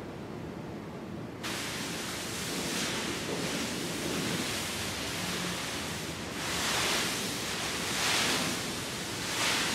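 Clear plastic bag rustling and crinkling as it is handled, a continuous crackle that starts about a second and a half in and swells louder several times near the end.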